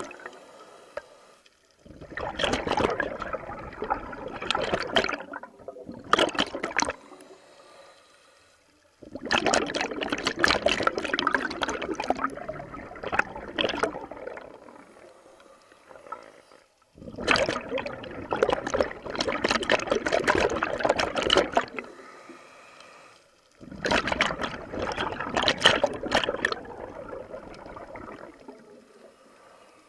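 Scuba regulator exhaust: the camera-wearing diver's exhaled air bubbling past the microphone in four long bursts a few seconds apart, one per breath, with quieter pauses for each inhale.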